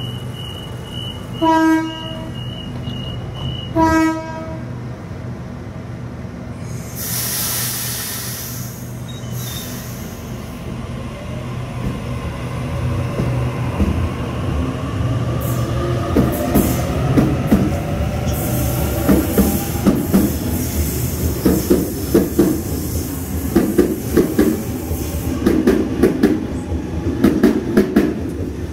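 Train sounding two short horn blasts, then running past with its wheels clattering over the rail joints, the clatter growing louder and denser through the second half.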